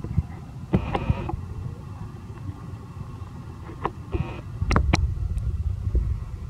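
Outdoor ambience: a steady low rumble that swells a little past the middle, with a few short sharp clicks and brief rustles.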